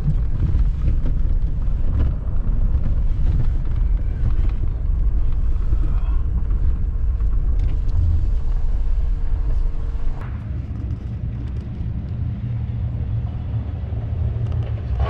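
Large engine running with a steady low rumble, easing off slightly about ten seconds in.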